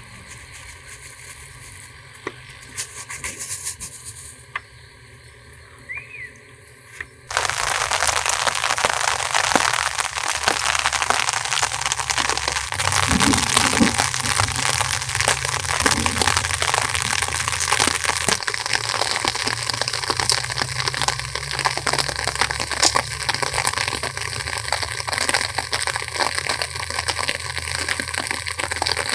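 Heavy rain starts suddenly about seven seconds in: a loud, dense crackling patter that holds steady. Before it there are only a few scattered clicks.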